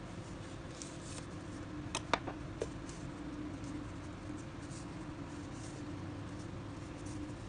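Side-cutting pliers snipping monofilament fishing line: a quick cluster of three or four sharp clicks about two seconds in. Faint scattered ticks of fingers handling the line follow, over a steady low hum.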